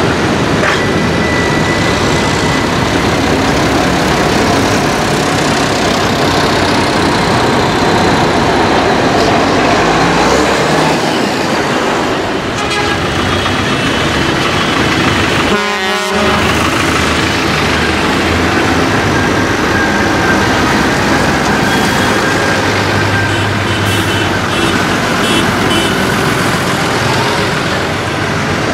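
Diesel engines of vintage and modern farm tractors running as they drive past one after another, some accelerating. A vehicle horn toots briefly about halfway through, with a few shorter toots later.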